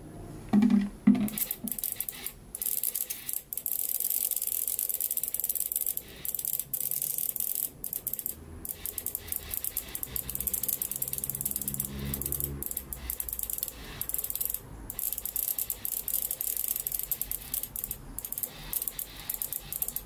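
BMW M54 fuel injector being pulsed electrically: rapid buzzing clicks from its solenoid, with the hiss of pressurised cleaning fluid spraying from the nozzle. It stops for short pauses several times. This is injector number 3, the weakest-flowing, dodgy one of the set.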